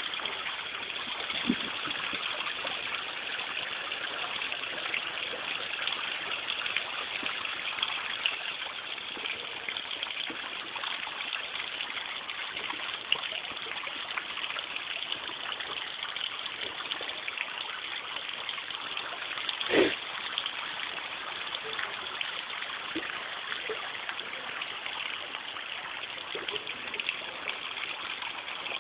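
Steady splashing and trickling of a pump-fed garden waterfall spilling down a rock garden into a pond. A brief thump about two-thirds of the way through.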